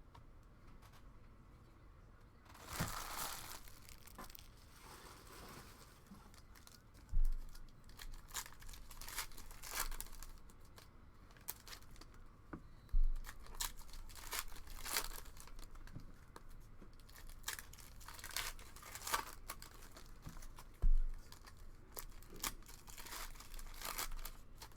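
Foil trading-card pack wrappers being torn open and crinkled, followed by cards being handled and flicked through with many short sharp clicks. Three loud dull thumps stand out among them.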